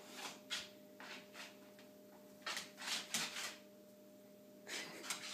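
A dog moving about and nosing at its ball: a few short scuffing and rustling sounds, clustered about halfway through and again near the end, over a faint steady hum.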